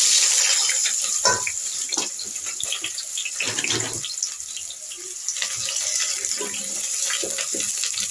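Fish frying in hot oil: a loud sizzle that starts suddenly, with crackles and spits throughout.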